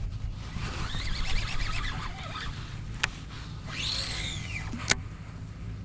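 Baitcasting rod and reel in use: a whir as line is wound in, a sharp click of the reel, then the spool whirring up and slowing again during a cast, and a second sharp click as the reel is re-engaged.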